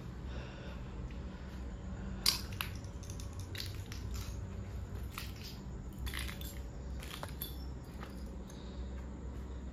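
Footsteps crunching on loose rubble and broken tiles on concrete stairs: irregular crunches and clicks, the sharpest about two seconds in, over a low steady rumble.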